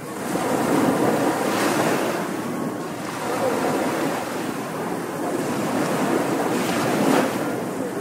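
Small waves breaking and washing up a sandy beach: a continuous surf hiss that swells as a wave breaks about a second in and again near the end.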